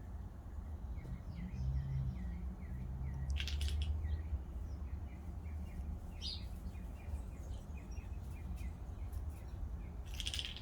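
A bird chirping over and over, about three or four short chirps a second, over a steady low rumble, with three brief sharp clicks.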